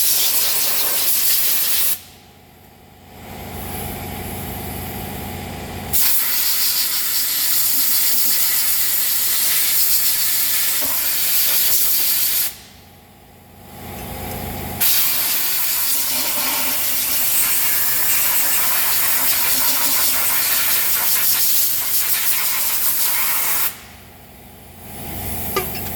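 High-pressure spray hissing in long bursts as engine parts are washed clean, cutting off abruptly about two seconds in, about halfway through and near the end, with a lower steady machine hum in each pause.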